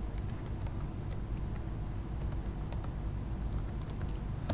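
Computer keyboard being typed on: about a dozen light key clicks at an irregular pace as a short terminal command is entered, over a low steady hum.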